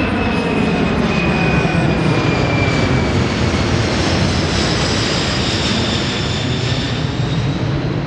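Boeing C-17 Globemaster III's four turbofan jet engines in a low, slow flyby: a loud, steady rush with a high whine that slowly falls in pitch as the aircraft passes, easing slightly near the end.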